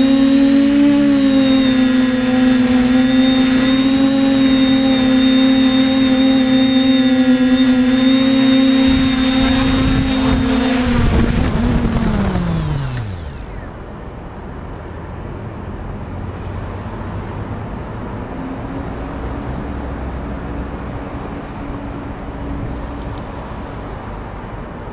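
TBS Discovery PRO quadcopter's motors and propellers humming steadily as it flies, heard close up from its onboard camera. About halfway through, the hum winds down in a falling whine and stops as the quadcopter lands and its motors spool down.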